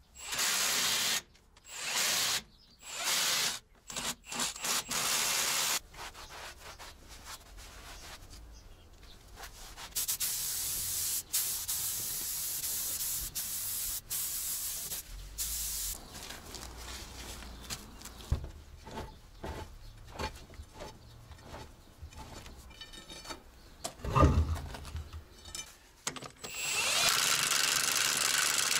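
Cordless impact wrench running the half-shaft flange nuts up tight on a truck hub, in short bursts of about a second each with brief pauses, several times over the first few seconds. Near the end the same wrench makes a longer, steady run on the wheel nuts. One sharp knock sounds about three quarters of the way through.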